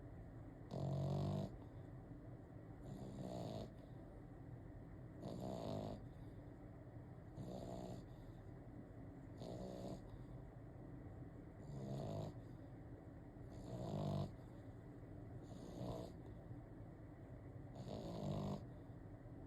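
A dog snoring in its sleep, one snore about every two seconds in a steady rhythm.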